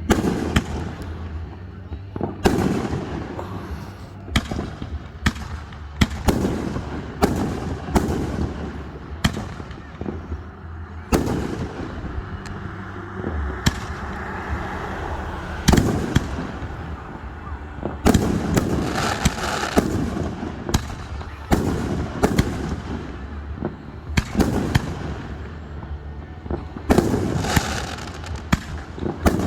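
Fireworks display: aerial shells bursting in sharp bangs about every second or two, with thicker crackling bursts twice, around two-thirds of the way through and near the end.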